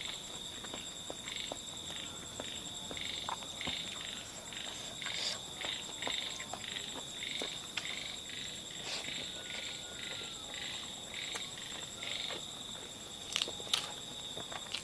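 An unidentified animal call, a short note repeated about twice a second, heard as a strange sound that the listener wonders may be a bird or a chicken. A steady high-pitched whine runs behind it, with scattered small clicks and a pair of louder clicks near the end.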